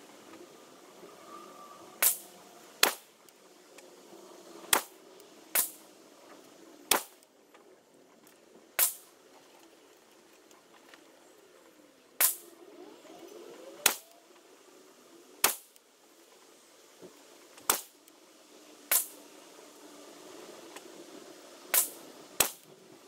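Suppressed Schmeisser S4F AR-15 with a 10.5-inch barrel and Valhalla CQB suppressor firing single aimed shots of .223 match ammunition, about a dozen sharp reports at uneven gaps of one to three seconds. The footage runs at six times normal speed, so the shots come far closer together than they were fired.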